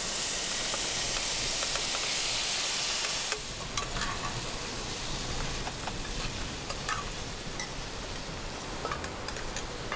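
Ackee and a fried mix of onion, sweet pepper, garlic and tomato sizzling in vegetable oil in a pan. The loud sizzle stops abruptly about three seconds in, and quieter cooking sounds follow, with scattered clicks of a utensil stirring.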